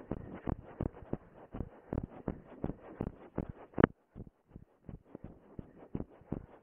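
A runner's footsteps on dry woodland ground, about three a second, heard as dull thuds through a body-worn camera. One sharper knock comes about four seconds in, after which the steps are fainter.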